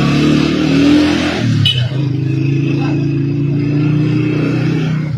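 Motor vehicle engine running close by, a steady low drone that dips briefly with a sharp click about a second and a half in.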